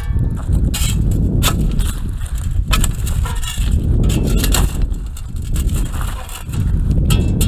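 Digging into beach sand and stones: crunching scrapes and knocks come again and again over a heavy low rumble.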